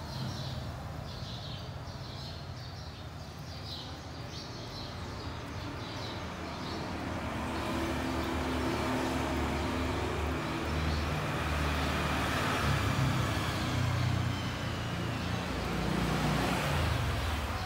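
Road traffic: a motor vehicle's low engine rumble that swells through the second half and eases off near the end.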